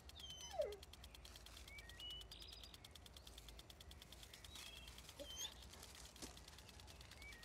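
Faint outdoor birdsong: short high chirps every second or so over a fast, even ticking, with one short falling squeak about half a second in.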